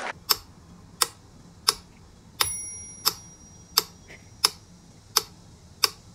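Mechanical pyramid metronome ticking at a steady beat, a little under one tick a second. Its bell rings twice, on every sixth tick.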